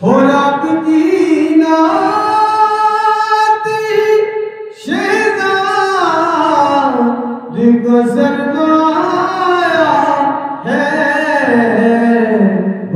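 A man singing a naat solo in long drawn-out phrases, holding wavering notes, with short pauses for breath between the lines.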